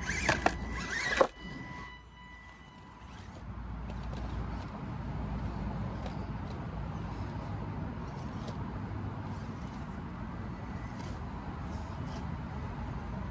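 Small electric motor of a 1/24-scale Enduro24 RC crawler whining in short rising and falling revs as it climbs over rocks, cutting off sharply about a second in. After that only a steady low rumble remains.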